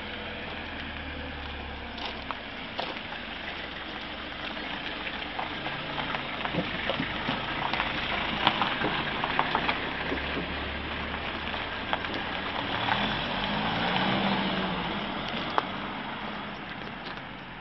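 Cars and a van driving past on a broken, potholed road, engine and tyre noise swelling as each one goes by, loudest around the middle and again a few seconds before the end. Scattered sharp clicks sound through it.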